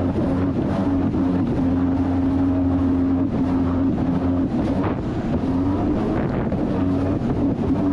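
Jet ski engine running at speed across the water, its pitch rising and falling slightly as the throttle and load shift, with wind buffeting the microphone.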